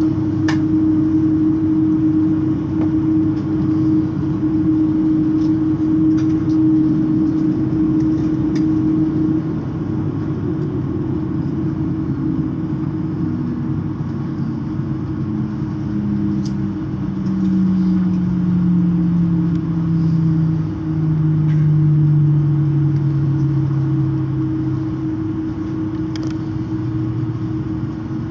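Cabin noise of an Airbus A330 taxiing: a steady engine and air-system drone with a steady hum. A second, lower tone slowly falls in pitch through the second half.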